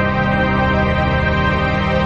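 Ambient electronic keyboard music: a dense chord of many notes held steadily, with no clear new notes struck.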